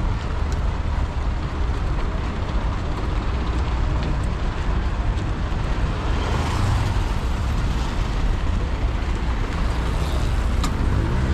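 Heavy road traffic: the engines of cars and buses run steadily under a constant rumble, growing louder for a moment about six seconds in.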